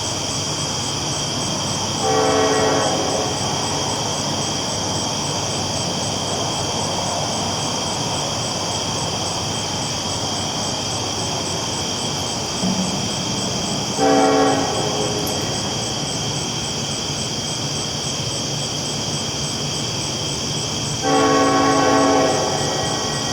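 Train horn sounding three times over a steady rumble of the train rolling along the tracks: a blast of about a second, a shorter one about twelve seconds later, and a longer one near the end. Each blast is a chord of several tones.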